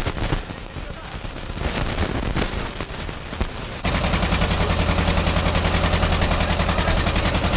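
Irregular knocking and rattling, then about four seconds in a small engine's fast, even putter cuts in abruptly and runs steadily.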